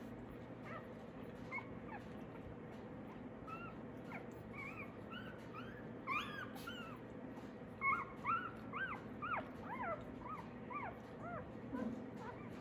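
One-day-old Australian Labradoodle puppies squeaking and whimpering while nursing: many short, high calls that rise and fall in pitch, sparse at first and coming thick and fast from about halfway through.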